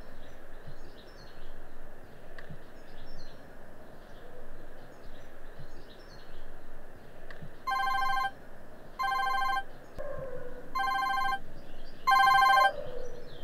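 Mobile phone ringtone: a fast-pulsing electronic ring that comes in four short bursts, starting a little past halfway, about a second and a half apart. Birds chirp throughout.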